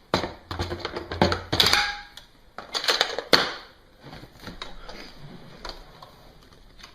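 Irregular plastic clicks and rattles, louder in the first few seconds and fainter later, as the upright vacuum's hose and wand are handled and taken apart; the motor is not running.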